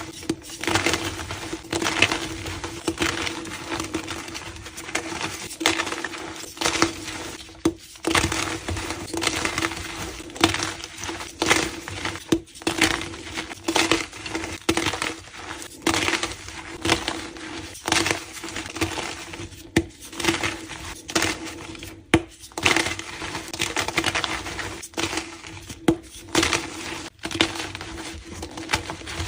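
Blocks of reformed gym chalk being crushed and crumbled, a dense run of dry, crisp crunches and crackles with a steady low hum underneath.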